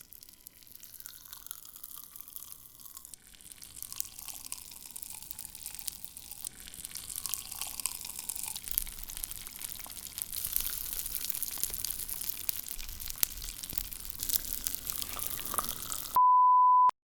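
Dense fine crackling and popping, like sizzling fat or popping candy, growing louder over the first half. About 16 seconds in it cuts off for a loud steady beep of under a second.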